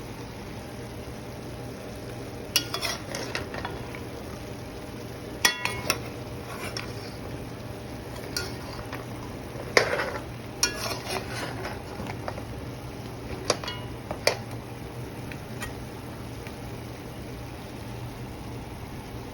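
A metal spoon stirring in a cooking pot, clinking sharply against its sides several times over a steady hiss, with the loudest clink about ten seconds in.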